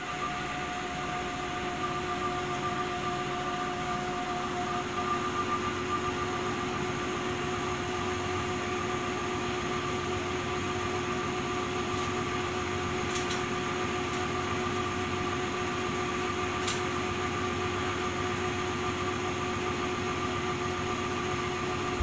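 1980 Candy Primato washing machine in its final spin at 500 rpm: the drum spinning steadily, with a steady motor whine over the rush of the spin.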